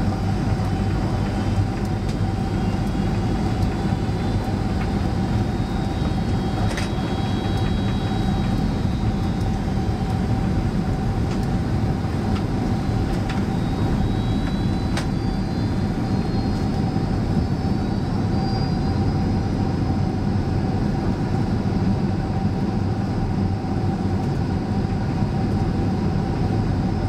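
Steady roar of jet engines and rushing air inside the cabin of a Boeing 767-300 descending on final approach, with a constant hum under it and a couple of faint clicks.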